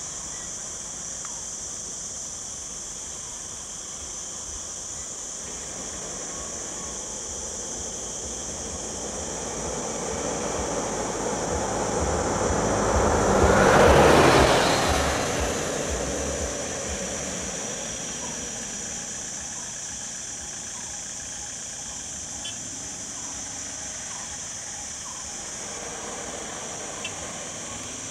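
A road vehicle passes close by: engine and tyre noise swell to a peak about halfway through, then fade away. A steady high-pitched hiss sits under it throughout.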